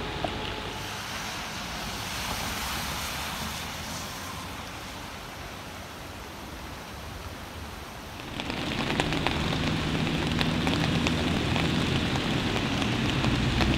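Steady noise of heavy rain and rushing floodwater. About eight seconds in it becomes louder and fuller as the churning of a flood-swollen creek takes over.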